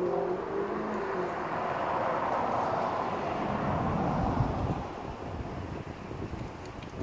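A road vehicle passing, its tyre and engine noise swelling to a peak about four seconds in and then fading.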